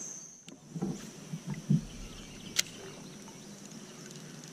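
Kayak paddling: a few dull knocks and splashes of the paddle against the water and the plastic hull, the loudest just under two seconds in, then a single sharp click.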